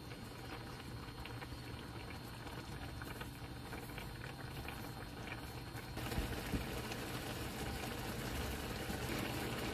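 Spicy rabokki broth bubbling in a frying pan with a steady crackle. About six seconds in it becomes a louder, fuller rolling boil, with a couple of sharp clicks just after.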